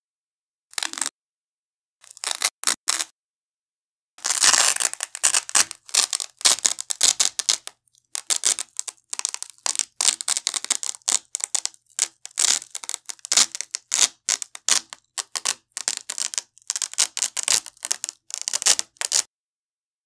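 Velcro hook-and-loop strap being slowly peeled off a wide Velcro strap: crunchy, crackling ripping. A few short tears in the first three seconds, then a long run of near-continuous crackling as the strap is pulled away from about four seconds in until just before the end.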